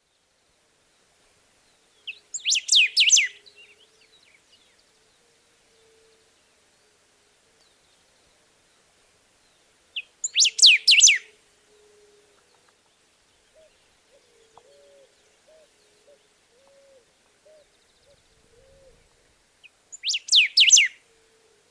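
Golden-billed saltator singing: three short phrases of quick, clear, repeated whistled notes, about eight seconds apart, each lasting about a second. Faint low notes sound in the gaps.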